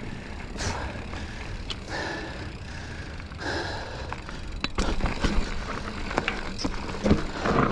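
A mountain biker breathing hard after a climb, a breath about every second and a half, over the noise of a Giant Fathom mountain bike rolling on a dirt trail. In the second half the bike rattles, with sharp clicks and knocks.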